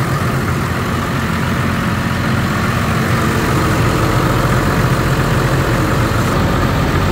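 Diesel engine of a 425 cfm portable screw compressor running steadily, with the compressor unit under way.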